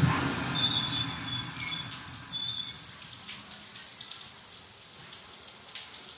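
Sneakers squeaking a few times on a glossy tiled floor during jumping and stepping exercises, short high squeaks in the first three seconds, with light footfalls over a steady hiss.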